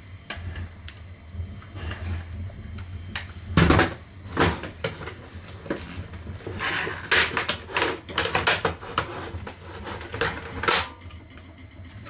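Snap-fit plastic clips of a Roomba's top cover being forced apart by hand: a run of sharp plastic clicks and cracks, the loudest about a third of the way in and a dense cluster in the second half.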